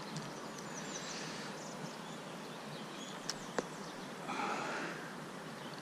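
Steady rush of a flowing creek, with a few faint high bird chirps near the start and two sharp clicks a little past the middle.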